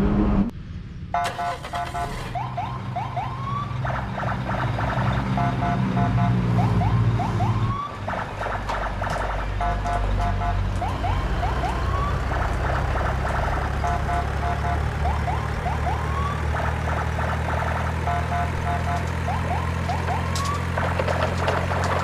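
An electronic siren-like sound repeating about every four seconds: three short beeps, then a few short rising whoops. A steady low hum runs under it.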